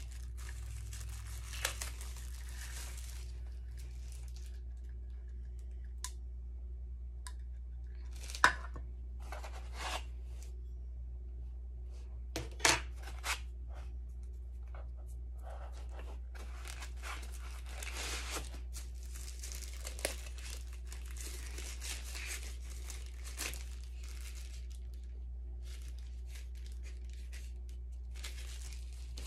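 Plastic packaging crinkling and tearing in bursts as small parts are unpacked and handled, with a few sharp clicks and knocks, the loudest about eight and a half and twelve and a half seconds in. A steady low hum runs underneath.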